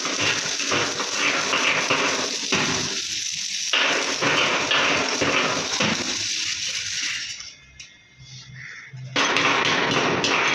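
Stick-welding arc crackling and hissing steadily. It breaks off about seven seconds in and strikes up again abruptly about two seconds later.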